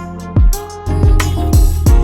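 Background music with a steady beat: deep kick drums and a bass line under pitched instrument layers.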